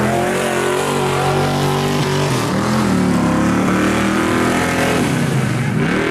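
Vintage Chevrolet pickup's engine revving up and down as the truck churns through a mud hole. The pitch rises and falls several times, with a deep drop near the end before climbing again.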